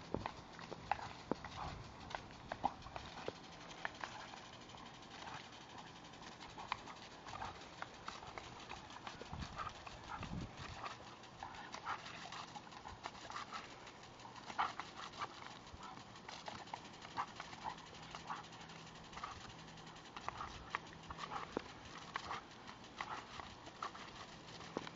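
A Doberman snapping its jaws at a lawn sprinkler's water spray: a string of irregular clicks and snaps over the steady hiss of the spray.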